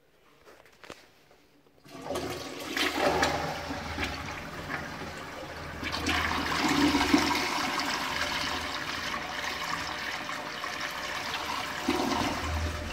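A 2008 American Standard Colony toilet flushing. After a light click, the flush starts suddenly about two seconds in: water rushes and swirls down the bowl, surges again about halfway through, then keeps running steadily.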